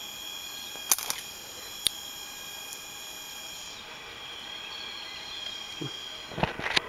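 Steady high-pitched insect chorus in the rainforest canopy: several held tones together. A few sharp clicks of handling noise cut in about a second in and near two seconds, with a louder cluster of clicks and knocks near the end.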